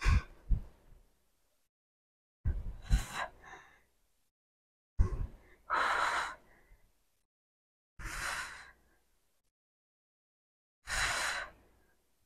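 A woman's forceful exhales, four short breaths about two to three seconds apart, the effort breathing of repeated dumbbell squats.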